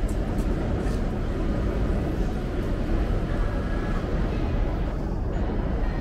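Steady low rumble of vehicles in a busy city street, with no break or single standout event.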